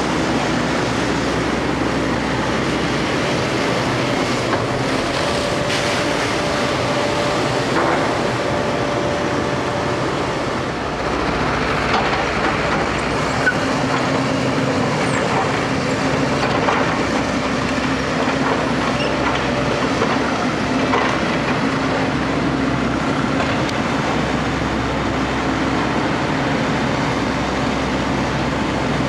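JCB JS220 crawler excavator working: its diesel engine runs steadily under load, with scattered metallic clanks and knocks through the middle stretch.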